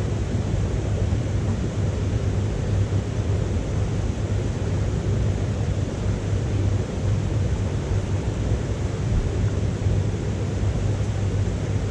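Wood fire burning in a small titanium wood stove, a steady low roar with no distinct crackles.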